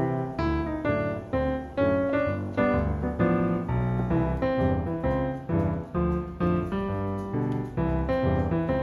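Background music: a piano tune played at an even, steady pace.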